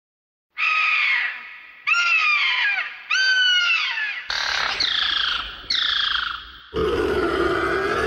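Pterosaur creature sound effect: five shrill screeching cries about a second apart, each falling in pitch, followed near the end by a deeper, rougher roar.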